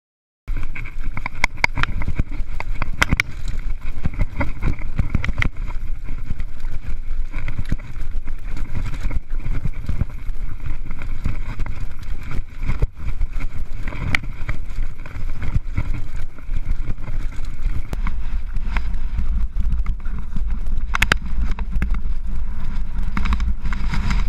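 Mountain bike riding down a rough, rocky trail, heard close up from a rider-mounted action camera: a constant clatter of tyres and frame over stones, with many sharp knocks and rattles. It cuts in abruptly about half a second in, and a heavy low rumble of wind on the microphone grows stronger in the last several seconds.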